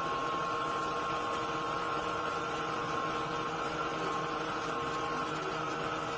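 CNC machine running steadily while machining tensile test samples, a steady whine of several tones over a mechanical hiss; one of the tones fades away about five seconds in.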